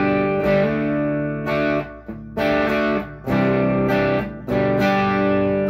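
Electric guitar through an overdriven amp, playing chords that ring out, with short gaps between them. It is wired 50s style with the tone knob rolled back to 3 and the volume on 10, a darker but still clear overdriven tone.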